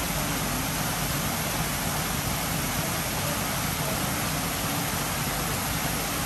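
Steady rush of water spilling over the rock ledges of a small garden cascade and splashing into the pond below.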